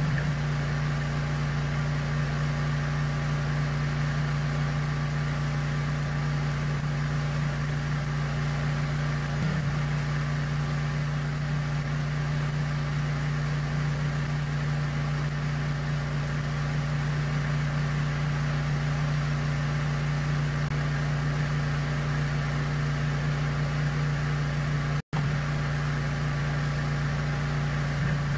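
Steady drone of an idling engine, holding one pitch and cutting out for an instant near the end.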